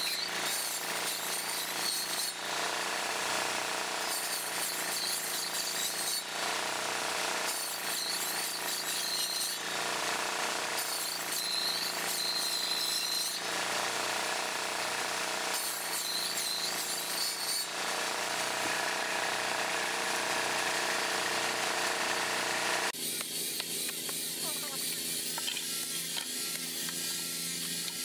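Circular saw blade on a homemade saw table cutting through a log, a dense rasping run with a high whine that comes and goes, its sound changing abruptly every few seconds. Near the end it gives way to a different, thinner tool sound.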